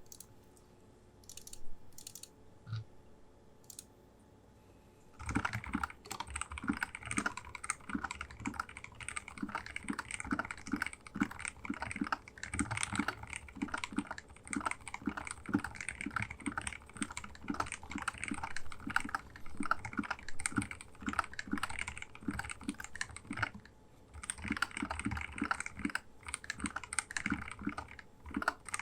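Keydous NJ80 mechanical keyboard with lubed TTC Bluish White switches and Poron foam between plate and PCB, being typed on. A few scattered keystrokes come first, then fast continuous typing begins about five seconds in, with a brief pause near the end.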